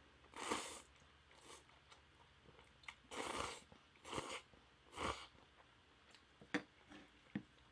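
A person slurping instant spicy seafood noodles from a soupy broth: about five short slurps in the first five seconds, then a few small mouth clicks of chewing near the end.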